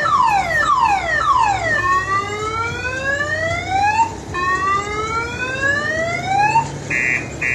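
Car alarm siren cycling through its tones: fast falling chirps about three a second, then two slow rising wails, then a rapid steady beeping that starts near the end.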